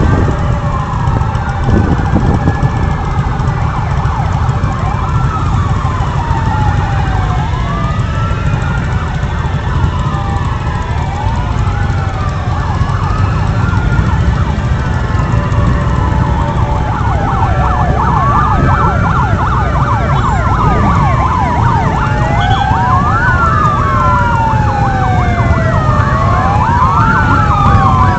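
Several wailing sirens sounding at once, their pitches rising and falling out of step with each other, becoming denser with some fast warbling in the second half. Underneath runs a steady low rumble of motorcycle engines and wind.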